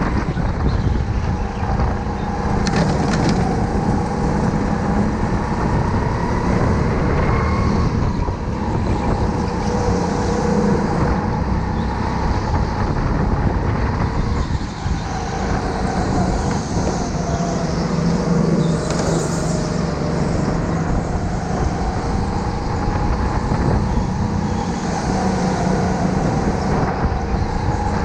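Rental go-kart engine running at speed, heard from onboard, its pitch rising and falling with the throttle through the corners.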